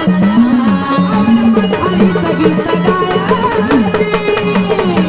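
Marathi gondhal folk music: drums keep a steady driving rhythm while a low pitched part swoops up and down, with melody instruments above.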